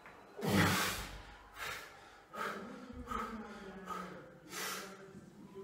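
A man breathing hard and forcefully under a loaded barbell during back squats: a loud, sharp exhale about half a second in as he drives up out of the bottom, then a run of five shorter, sharp breaths, one about every 0.7 s.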